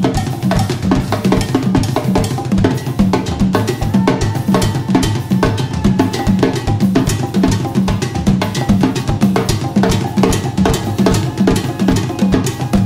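Jazz drum kit and hand percussion playing a busy, driving rhythm together: bass drum, snare and rim strikes in a steady, fast pattern.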